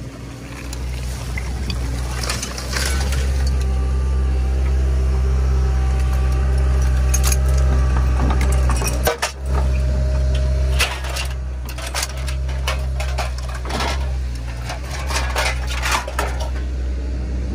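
Diesel engine of a Hyundai HX160L excavator running steadily, louder from about two seconds in, as its bucket scrapes through landfill trash and its magnet picks up scrap metal. Loose metal pieces clink and clatter against each other and the magnet many times, mostly in the second half.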